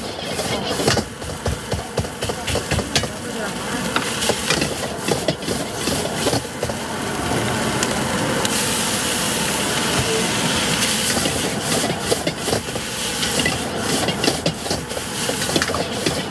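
Street-stall cooking: a fast clatter of utensils and knocks, with a hiss of sizzling steam swelling about eight seconds in and lasting a few seconds.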